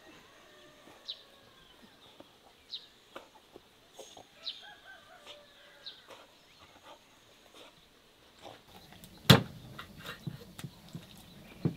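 Short, high bird chirps every second or two. About nine seconds in comes one sharp knock, the loudest sound, then a few lighter knocks: a knife cutting raw whole chickens on a wooden board.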